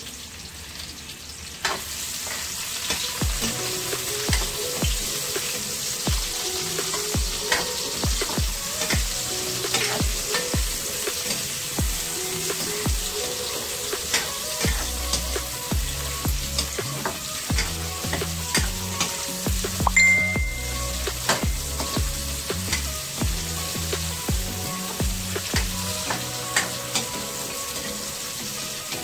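Chopped onions sizzling in oil in a frying pan, getting louder about two seconds in, while a metal spoon stirring them clicks and knocks against the pan again and again.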